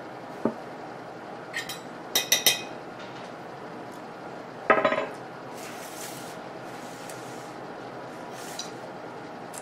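Tableware clinking: small ceramic bowls and a fork knocked against a dinner plate. A few short ringing clinks about two seconds in, then a louder ringing clink at about five seconds, with faint scrapes after.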